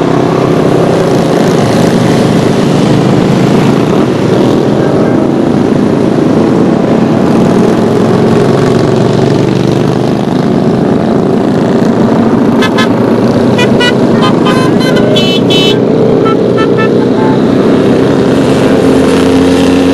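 Cruiser motorcycles riding past one after another at low speed, their engines running steadily. About two-thirds of the way through comes a run of short, high beeps.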